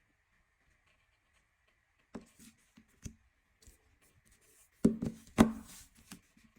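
Handling noises from smartphones being picked up and put down: a few light taps and knocks, then two louder thumps about half a second apart near the end.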